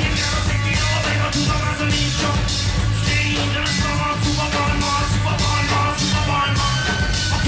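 Live rock band playing, with a repeating bass riff and a steady, driving drumbeat.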